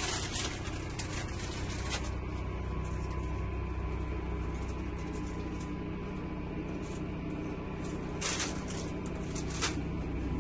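Steady low engine and road drone inside a motorhome cabin, with a faint thin whine and scattered sharp clicks and rattles from the fittings. The strongest rattles come about eight seconds and nine and a half seconds in.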